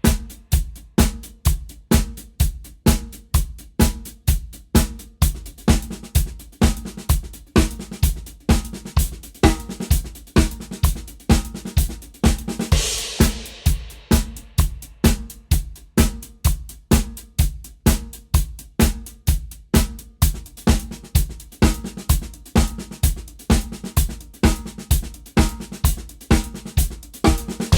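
Drum kit played solo: single and inverted paradiddles as steady sixteenth notes spread across the drums and hi-hat, with bass drum hits about twice a second. A brief cymbal wash comes about halfway through.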